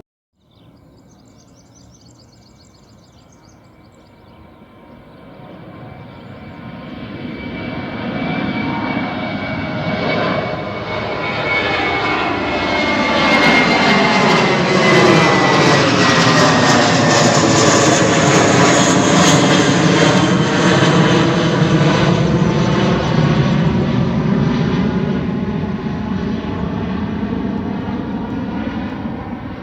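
Airliner taking off past at close range: engine noise builds from quiet to a loud roar, then holds. A high whine slides down in pitch as it passes, and the noise sweeps in and out as it goes over.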